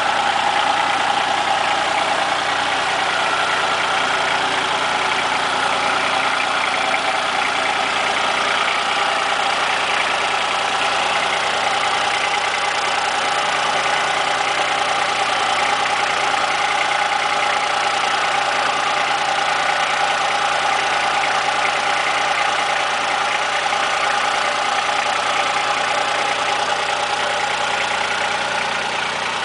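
Kubota compact tractor's diesel engine running steadily at a low, even speed.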